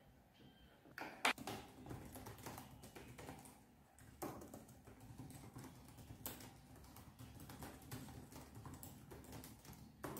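Typing on a Samsung laptop's keyboard: a fast run of key clicks that starts about a second in, with one louder key strike just after.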